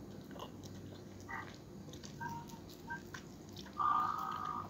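Soft chewing and mouth sounds of a person eating ripe mango slices, with faint small clicks. A short steady tone near the end is the loudest sound.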